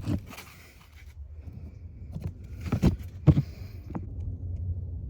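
A few sharp knocks and faint scrapes from handling plastic parts of the cabin filter housing, over a low steady hum.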